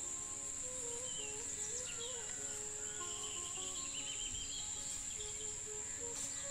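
Steady high-pitched insect drone with scattered bird chirps, over soft background music with slowly changing held notes.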